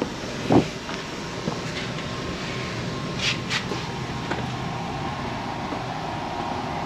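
Steady mechanical drone of HVAC air-handling equipment running, with a thump about half a second in and two short hisses around three seconds in.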